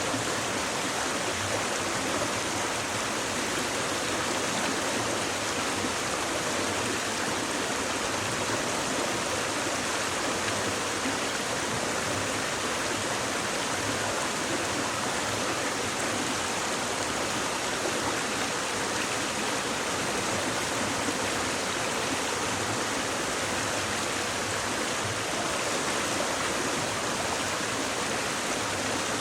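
Shallow stream babbling steadily over stones.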